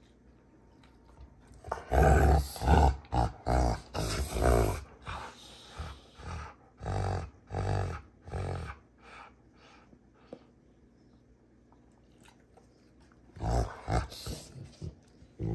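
Two Rottweilers play-fighting, growling in a quick run of short bursts starting about two seconds in and fading out after about nine seconds, then growling again near the end.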